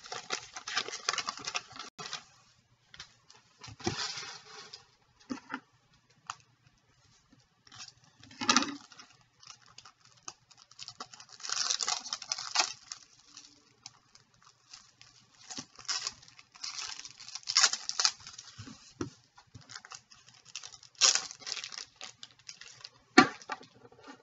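Hockey trading cards and a foil card pack being handled at a desk: cards sliding and shuffling against each other, with irregular bursts of rustling and small clicks as the pack wrapper is worked open.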